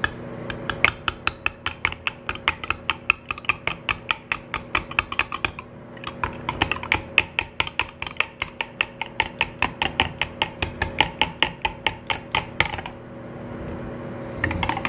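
A metal table knife clinking rapidly against the sides of a glass measuring cup while stirring hot liquid plastisol, at about five clinks a second, in two spells with a brief pause about halfway, stopping about two seconds before the end.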